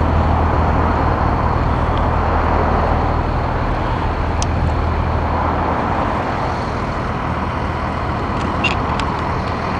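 Steady low vehicle rumble with an even rushing noise, the hum easing a little after about six seconds, and a few faint clicks.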